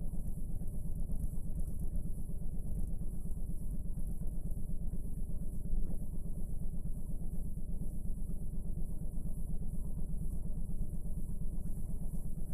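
Steady low buzzing hum with a fast, even pulse and a faint high whine: noise from a blank stretch of VHS tape.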